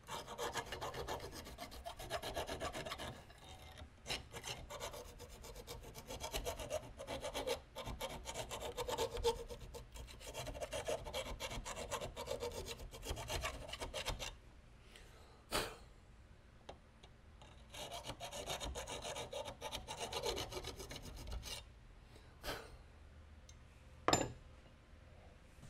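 Round file rasping in quick back-and-forth strokes inside a small metal tube held in a vise, roughing the bore so it will take solder. The strokes run through the first half, stop, then resume briefly. A few sharp taps follow, the loudest near the end.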